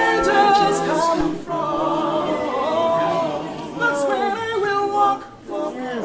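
A group of voices singing a gospel song together a cappella, with no instruments, with a short break between lines about five seconds in.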